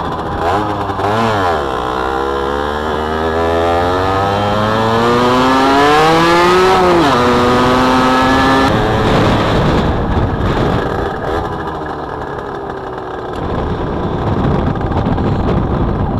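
Derbi 50cc two-stroke motorcycle engine under way, its pitch climbing slowly for about seven seconds, then dropping sharply as the revs fall and holding briefly. From about nine seconds a rough rushing noise takes over with little engine tone left. The rider's verdict is that the bike makes plenty of noise but has no pick-up.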